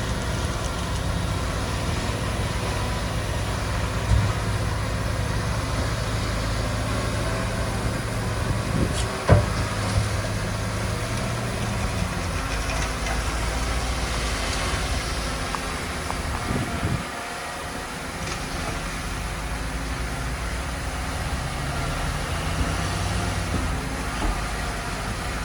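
Diesel engines of heavy earthmoving machinery running steadily, with a sharp knock about nine seconds in.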